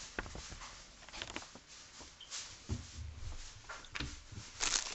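Light rustling and tapping from handling a paper booklet and snack packages. Near the end, a plastic snack wrapper starts crinkling loudly as it is handled and opened.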